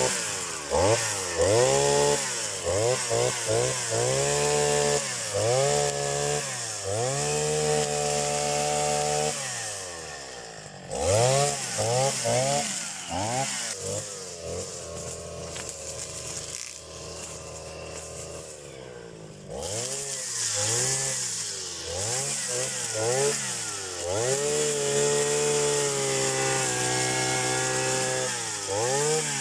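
Petrol grass trimmer's small engine, just started and warming up, revved up and down over and over with the throttle. Now and then it is held at high speed for a second or two, and it drops to a quieter idle for a few seconds about halfway through.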